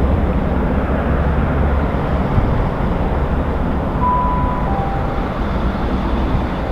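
Steam-hauled train, 60163 Tornado and its coaches, rumbling past at speed: a loud, steady rush of noise with no separate exhaust beats. Two brief high tones sound about four and five seconds in.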